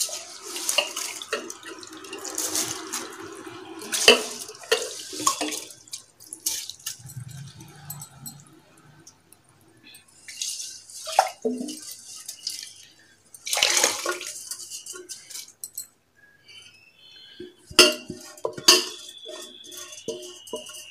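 Boiling tamarind water with rice in a pressure cooker, the liquid sloshing and splashing in short bursts, with a few sharp knocks.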